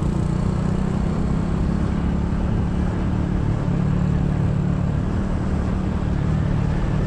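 Honda Super Cub 125's single-cylinder engine running at a steady cruise, under a constant rush of wind noise.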